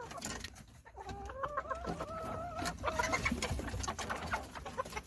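Chickens clucking, with one long drawn-out call from about a second in to nearly three seconds, and shorter calls after it. Scattered sharp clicks and scratches are mixed in.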